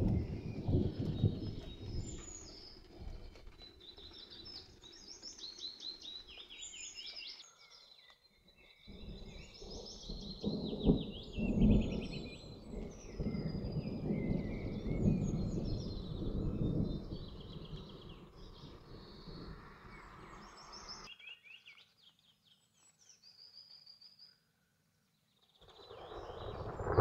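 Distant thunder rumbling in low, rolling swells, with songbirds singing quick, high repeated phrases over it. The sound drops out to dead silence briefly about eight seconds in and again for several seconds near the end.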